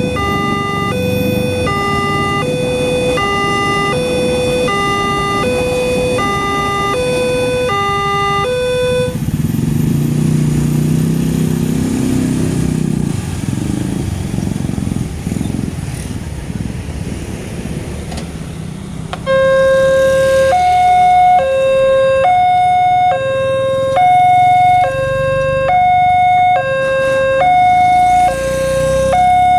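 Railway level-crossing warning siren: an electronic two-tone signal alternating between a low and a high note about once a second, over a low rumble. It stops about nine seconds in, leaving a low rumble, and about ten seconds later a louder, higher-pitched two-tone crossing siren starts alternating at a similar pace.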